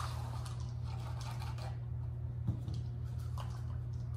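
Baking soda being poured and spooned through a paper funnel into a plastic bottle: faint rustling and scraping, with a single soft knock about two and a half seconds in, over a steady low hum.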